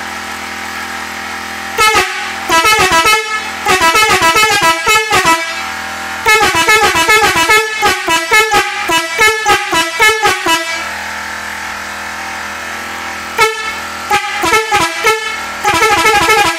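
Eight-melody musical air horn playing tunes as rapid runs of short notes stepping up and down, in several runs with pauses between them. A steady hum continues underneath and through the pauses.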